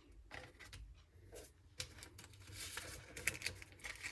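Paper and plastic packaging being handled: faint rustling and crinkling with scattered light taps and clicks, busiest in the second half.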